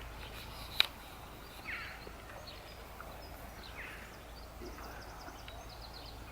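Quiet outdoor ambience with faint small-bird chirps and short, quick trills, and a single sharp click about a second in.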